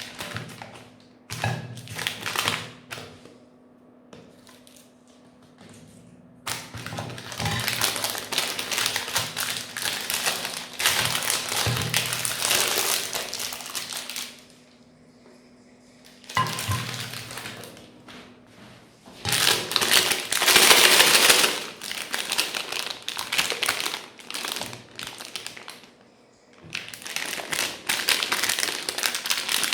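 Meat grinder grinding frozen ice cream: dense crunching and crackling in several long spells, with quieter pauses in between.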